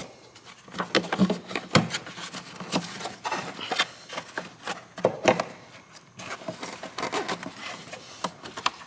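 Hard plastic air filter housing being pushed and worked into its seat in a car's engine bay: irregular knocks and clicks of plastic against plastic and metal, with rubbing in between.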